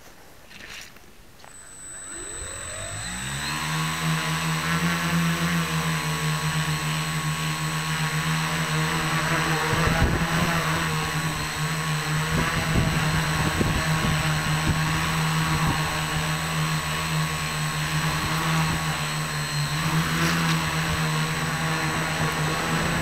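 Tricopter's electric motors and propellers spinning up from rest about two seconds in, the pitch rising and then settling into a steady whine with many overtones as it takes off and flies, heard from an on-board camera. Irregular low rumbling buffets come in around ten to fourteen seconds.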